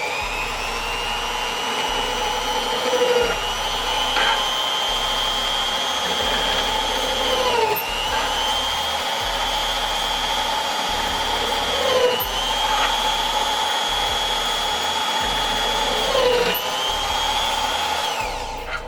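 Corded electric drill running with a 4 mm bit, chamfering (countersinking) drilled holes in an aluminium heatsink. Its steady whine dips briefly in pitch four times, about every four seconds, as the bit is pressed into a hole. It winds down near the end.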